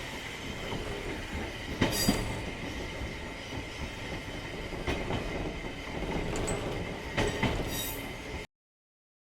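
A train running on the rails: a steady rumble with occasional sharp clacks, the loudest about two seconds in, that cuts off suddenly near the end.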